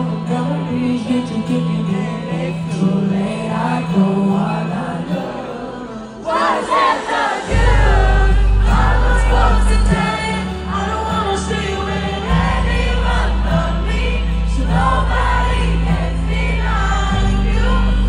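A female singer singing live into a microphone over the band's music. The music dips briefly about six seconds in, and a heavy deep bass comes in at about seven and a half seconds.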